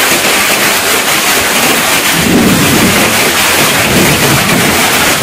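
Heavy rain pouring in a windy storm: a loud, steady rush, with a deeper rumble swelling about two seconds in.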